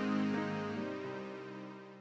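Background music: sustained chords, changing a couple of times, fading out steadily.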